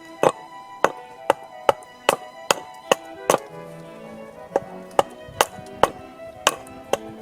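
Repeated sharp strikes on wood, about two to three a second with a pause around the middle, over background music with violin.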